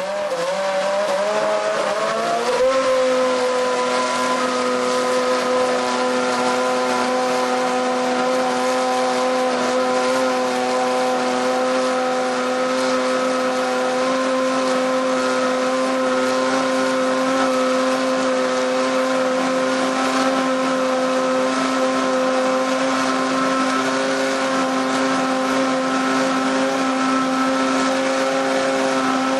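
McLaren Formula 1 V8 engine running. Its revs climb over the first two and a half seconds, then hold steady at a high, constant pitch.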